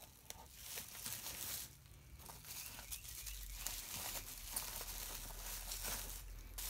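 Bubble wrap crinkling on and off as hands handle bubble-wrapped eggs in a cardboard box.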